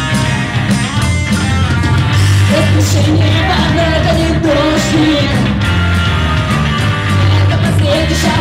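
Rock music with guitars and a steady bass line, and a voice singing a melody from about two seconds in.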